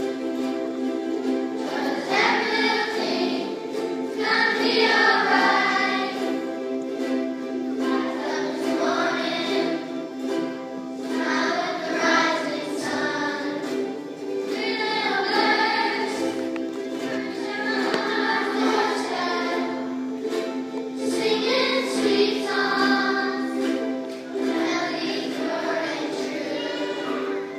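A choir singing a song over steady instrumental accompaniment, the sung phrases rising and breaking every few seconds.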